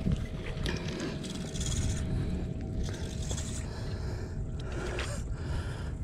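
Spinning reel being cranked as a hooked fish is reeled in, over a low rumble throughout. A faint steady whine runs through the first four seconds or so and then stops.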